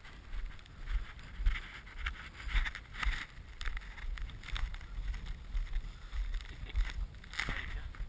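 Rhythmic swishing and crunching strokes in snow, about two a second, from travel on the towlines behind a team of huskies, with wind rumbling on the microphone.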